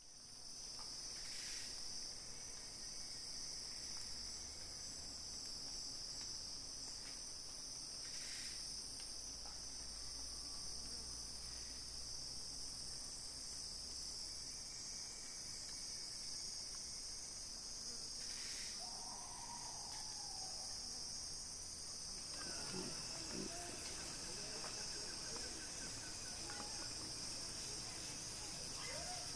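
Steady high-pitched chorus of forest insects, droning without a break; from about three-quarters of the way through, faint irregular clicks and rustles join in.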